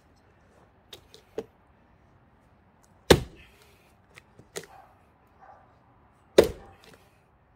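Axe striking a hard pine log: two loud, sharp chopping blows about three seconds apart, with a few lighter knocks before and between them.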